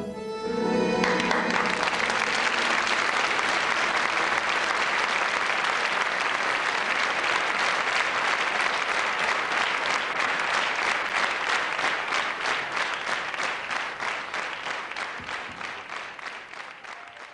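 Audience applauding as the band's last note dies away. The clapping falls into a steady rhythm in unison, about three claps a second, then fades out near the end.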